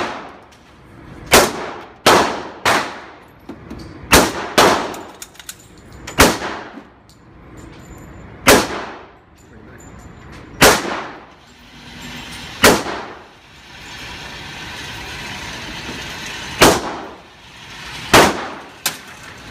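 Glock 19C 9mm pistol firing single shots at an uneven pace, about a dozen in all, some in quick pairs less than a second apart and others several seconds apart. Each sharp crack trails off in a short ring.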